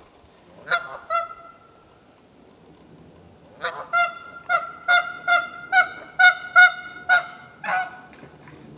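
Canada goose honking: two honks about a second in, then a rapid run of about ten honks, roughly two a second, from about four seconds in until near the end.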